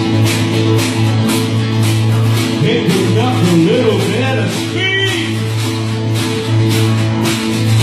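Live band playing a number with amplified guitars over a steady low bass note and a regular beat. A bending melody line rises and falls through the middle.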